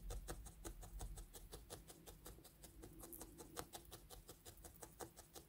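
Barbed felting needle stabbing quickly and repeatedly into wool, making faint, rapid ticks at about eight a second.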